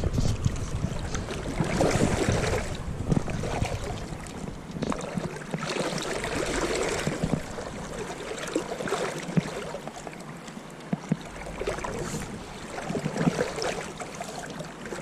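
River water rushing and lapping around a wading angler's legs, surging and easing, with wind buffeting the microphone at times, most in the first few seconds.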